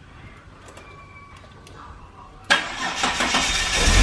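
Holden VS Commodore engine starting: quiet for about two and a half seconds, then it fires suddenly and keeps running.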